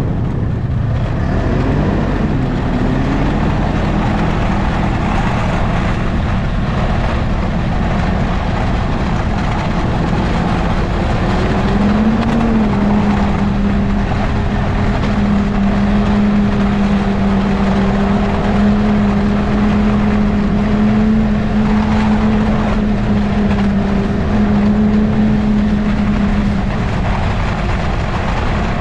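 Ski-Doo snowmobile with a Rotax 600 ACE three-cylinder four-stroke engine pulling away, its note climbing over the first few seconds. It then runs at a steady cruising speed, the pitch lifting briefly about twelve seconds in before settling again.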